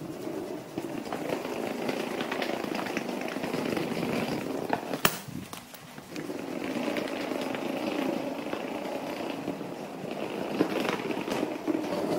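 Small hard wheels of a rolling suitcase rattling over a tiled floor, a continuous crackly rumble with one sharp knock about five seconds in and a brief lull just after.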